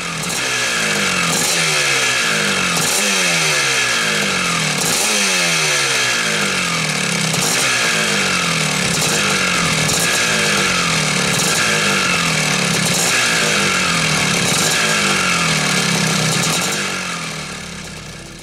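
Vintage Husqvarna 250 two-stroke motocross engine running and being blipped over and over, about once a second, each rev jumping up and falling back toward idle. The sound fades out near the end.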